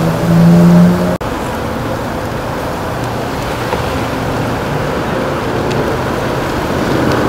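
Steady rumble of idling fire engines and road traffic. In the first second a louder pitched sound steps upward in pitch, then cuts off abruptly.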